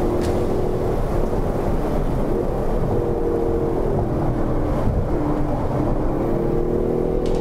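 Stock 2019 Hyundai Veloster N's turbocharged four-cylinder engine and exhaust heard from inside the cabin, its pitch rising and falling as the car accelerates and eases off between bends, over steady road rumble. A brief sharp click sounds near the start and another near the end.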